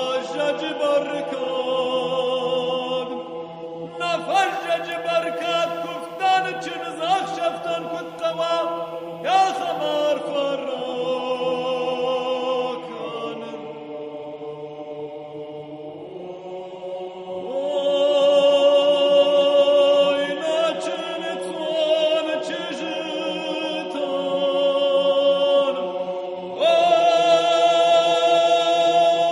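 Background music: a choral chant of long held voices over a steady low drone, the chords shifting every few seconds.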